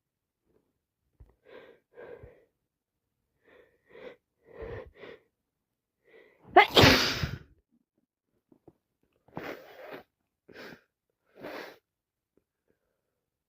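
A series of short breathy bursts, with one loud sneeze about halfway through and a few shorter bursts after it.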